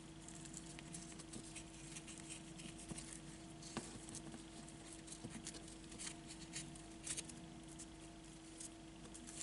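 Faint rustling and small clicks of a ribbon being handled and tied into a knot by hand, over a steady low hum.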